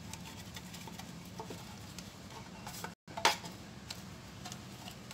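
Pastry brush working margarine over a stainless-steel cake pan: soft brushing scrapes and light taps against the metal, over a low steady hum. There is a sharper knock about three seconds in.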